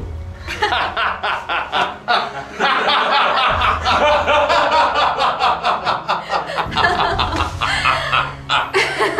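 Several people laughing hard in quick, repeated ha-ha pulses, with background music underneath.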